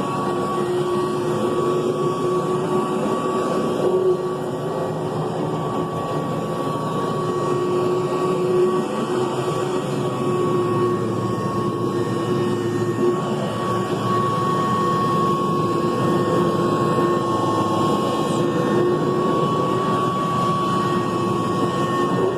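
Upright vacuum cleaner running steadily, its motor giving a constant whine over the rush of air.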